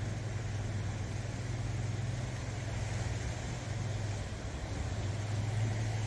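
Sea waves washing and breaking over shoreline rocks in a steady wash, with a steady low engine drone underneath.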